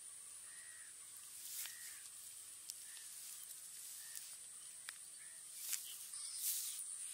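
Faint outdoor ambience: a bird calling over and over, about once a second, over a steady high hiss, with a few light clicks.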